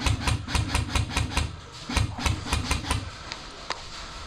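Airsoft guns firing rapid strings of shots, each a sharp crack with a low thump, in two bursts, then a couple of single shots near the end.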